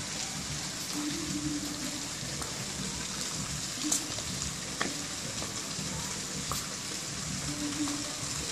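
Steady hiss of water, with a couple of faint clicks about four and five seconds in.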